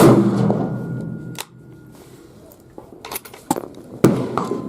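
Remington 700 bolt-action rifle firing one unsuppressed, supersonic .308 round: a sharp crack right at the start that rings out over about a second and a half. A few lighter clicks and knocks follow.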